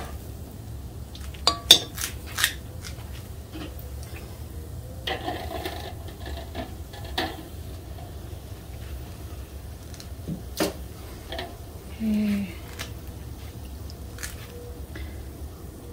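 Metal kitchen utensils clinking and scraping against pots and bowls: scattered sharp clinks, the loudest about two seconds in, over a steady low hum.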